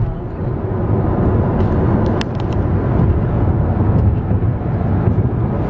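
Steady road and engine rumble inside the cabin of a car moving at highway speed. A few faint light clicks come about two seconds in.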